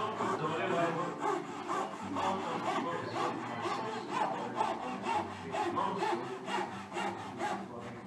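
Fret saw on a marquetry chevalet cutting through a clamped packet of wood veneer, in quick, even back-and-forth strokes.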